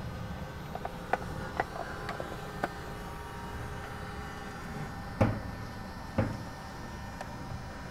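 Muffled, steady underwater rumble as picked up through a camera's waterproof housing, with a few sharp clicks in the first three seconds and two louder knocks about five and six seconds in.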